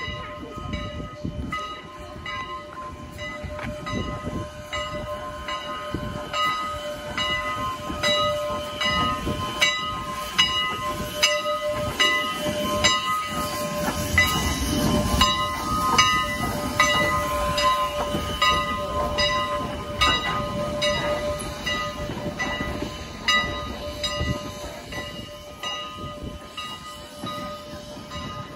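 Steam locomotive No. 89 pulling slowly into the station, its bell clanging at a steady pace of about three strokes every two seconds. Under the bell, the locomotive's chuffing and rumble build to their loudest about halfway through as the engine passes close by, then ease off.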